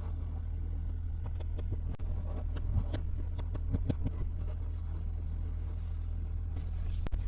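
A steady low hum with faint, scattered clicks and taps of small plastic toy pieces being handled.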